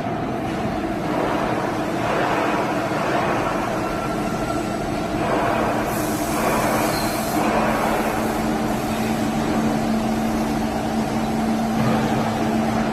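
Vertical machining center running: a steady machine hum with a low tone that grows stronger about halfway through.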